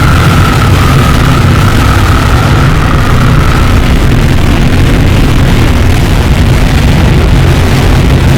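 Harsh noise music: a dense, loud wall of distorted noise with a heavy low rumble. A wavering high tone runs over it and fades out about three and a half seconds in.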